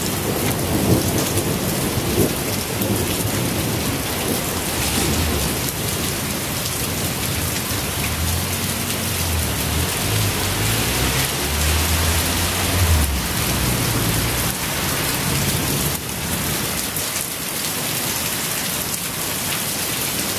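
Torrential rain pouring steadily onto a paved street and leafy trees, a dense continuous hiss. A low rumble rises and falls underneath from about eight to thirteen seconds in.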